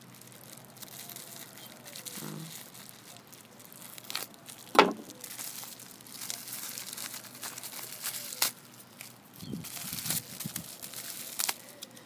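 Plastic bubble wrap crinkling and tearing as it is cut open and pulled off a folding knife, with scattered crackles and one sharp pop about five seconds in.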